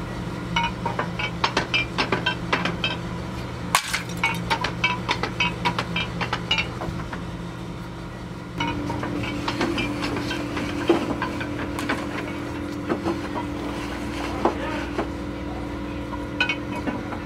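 Fired terracotta tiles clinking against one another as they are handled and stacked: many short, irregular clinks with a slight ring.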